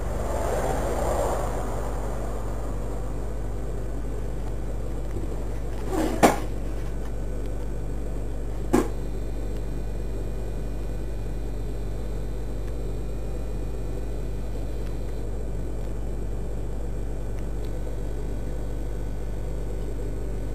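Steady low electrical hum with a hiss over it. Two short sharp knocks come about two and a half seconds apart, partway through.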